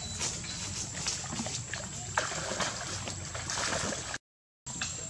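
Water splashing and sloshing as young monkeys swim, dive and tussle in a shallow pond, with many short splashes. The sound cuts out completely for a moment about four seconds in.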